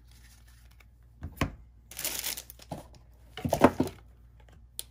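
Trading cards being gathered up and slid across a cloth playmat: a few short bursts of rustling and crinkling handling noise, loudest about three and a half seconds in, with a small click near the end.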